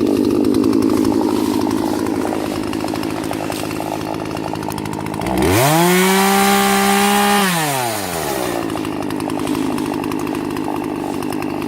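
Two-stroke gas chainsaw running at a low, steady speed, then revved up sharply about five seconds in. It holds at high revs for about two seconds, then drops back to its lower speed.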